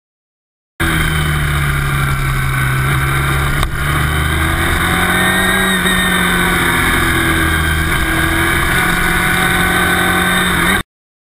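Sport motorcycle engine running under way, its pitch wavering slowly up and down, with a brief dip about four seconds in. It starts about a second in and cuts off abruptly near the end.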